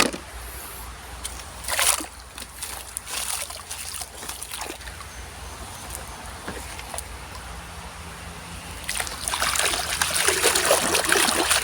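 Water sloshing and trickling while muddy toy vehicles are rinsed, with short splashes and a longer, louder stretch of splashing near the end.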